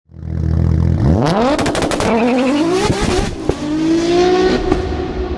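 Car engine idling, then revving hard and accelerating through the gears: the pitch sweeps steeply up, drops and climbs again a couple of times, and settles into a steady high note near the end. A quick cluster of sharp clicks comes during the first rev.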